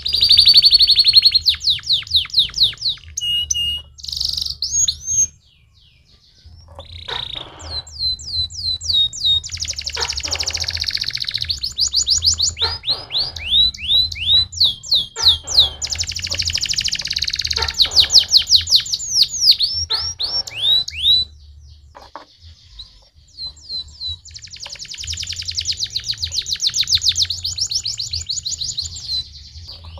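Canary singing: long phrases of fast repeated high notes and rolling trills, mixed with sliding whistles, broken by short pauses about five seconds in and again past the twenty-second mark. A steady low hum runs underneath.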